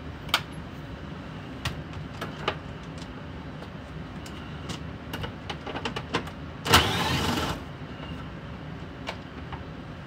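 Hand tools clicking and knocking on the plastic steering column of a 1999 Chevy Blazer as the column trim bolts are worked loose. About two-thirds of the way in there is one louder burst of metal-on-plastic noise lasting nearly a second.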